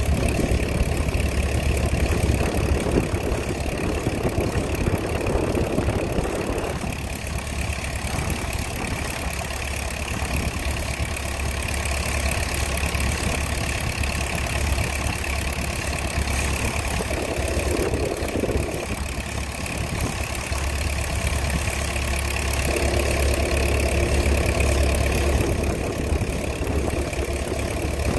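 An engine running steadily with a deep hum and a steady high whine; the lower rumble shifts in tone about seven seconds in and again around two-thirds through.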